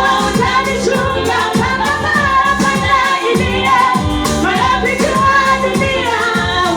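School choir singing a song, with female voices leading over a steady drum beat.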